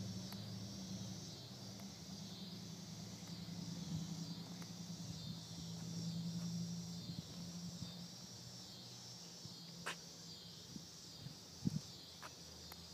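Outdoor insect chorus, a steady high chirring that pulses evenly. A low engine hum fades away over the first half, and a couple of sharp clicks come near the end.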